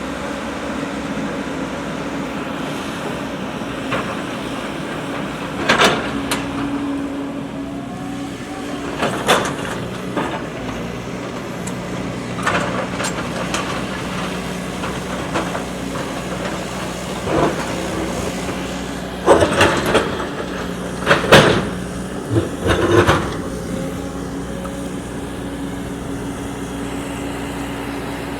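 JCB backhoe loader's diesel engine running steadily at a working pace, with a series of sharp knocks and clanks on top that are loudest and most frequent about two-thirds of the way in.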